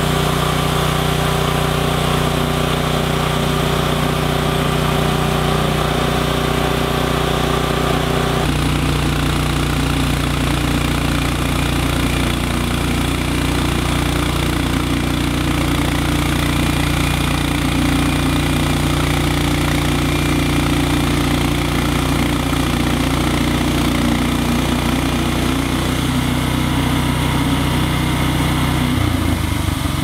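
Timbery M120 portable band sawmill running steadily, its small petrol engine driving the band blade through a pine log. The engine note shifts about a third of the way in and again near the end.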